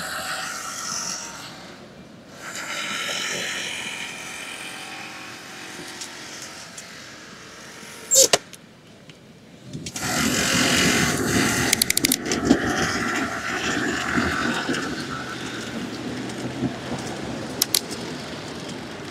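Street traffic heard from a bicycle at a city intersection, with a single sharp click about eight seconds in. From about ten seconds in the ride gets under way and the sound of road and traffic grows louder and busier.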